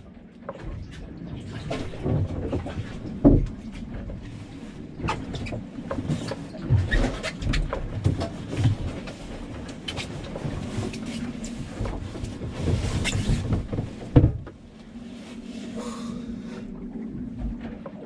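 A person climbing down a small sailboat's companionway ladder into the cabin in foul-weather gear: a run of knocks and thumps from feet and hands on the steps and hatch. The two loudest thumps come a few seconds in and again about four seconds before the end.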